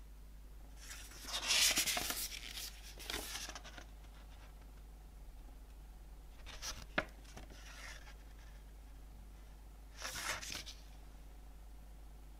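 Glossy paper pages of a CD booklet turned by hand: four rustling page flips, the first the loudest, with one sharp tap in the middle.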